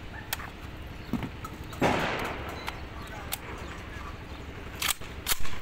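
A 222-bore AK-style rifle firing a few separate shots with pauses between them, rather than a fast burst: one about two seconds in, then two close together near the end, the last the loudest.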